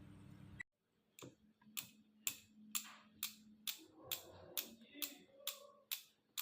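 A series of sharp, evenly spaced clicks, about two a second, over a faint steady hum.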